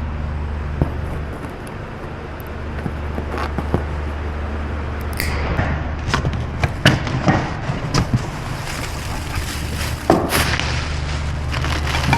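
Workshop sounds: a steady low hum that fades out twice, with a string of sharp knocks and clanks in the second half, as of metal parts or tools being handled.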